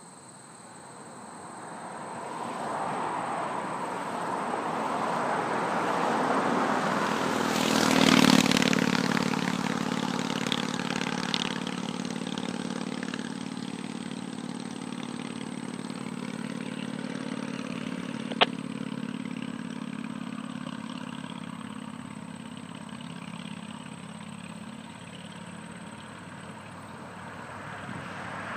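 Road traffic on the highway beside the tracks, one vehicle passing loudly about eight seconds in, then a steady low engine hum. A single sharp click comes about midway, and near the end the sound swells as the CSX freight train approaches.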